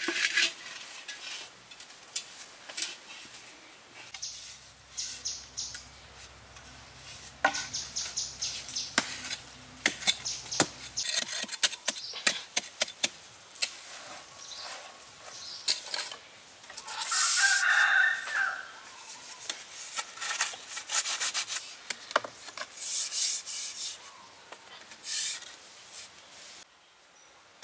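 Hand work in dry soil: scraping and scooping dirt, with knocks and rubbing as bamboo pipes are handled and fitted. A rooster crows once, a little past the middle.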